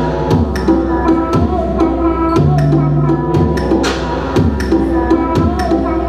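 Live electronic music played on a tabletop mixer-and-effects setup: a repeating pattern of sharp clicks over steady low and mid drones, with short falling pitch sweeps every second or so.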